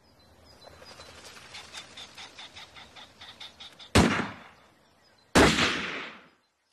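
Side-by-side double-barrelled shotgun fired twice, about four seconds in and again about a second and a half later, each shot trailing off over a second. Before the shots, a rhythmic pulsing of about five beats a second grows louder.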